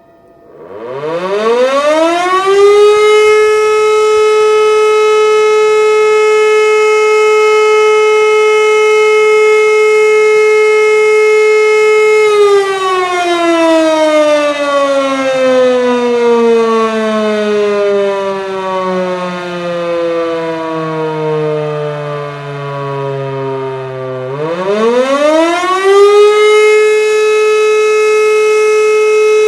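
E57 electromechanical siren sounding the German "Feueralarm" signal, which calls out the volunteer fire brigade. It winds up over the first couple of seconds to a steady tone and holds it until about twelve seconds in. Then it winds down slowly for about twelve seconds, the rotor coasting, before winding up again and holding the steady tone.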